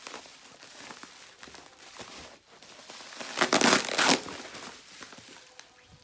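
Parcel packaging being crinkled and torn open by hand, with light rustling and one loud burst of tearing and crumpling a little past the middle.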